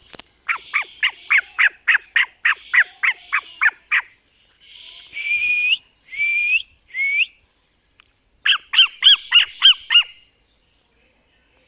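Cockatiel calling: a fast run of about a dozen short, sharp calls, then three longer calls that slide upward, then another quick run of short calls.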